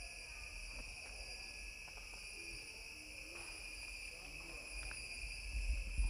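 Steady insect chorus, a continuous high-pitched drone made of several even tones.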